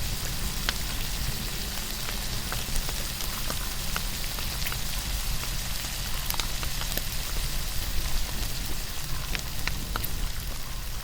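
Saga beef steak sizzling over a wood campfire: a steady frying hiss broken by many small sharp pops and spatters, with a low rumble underneath.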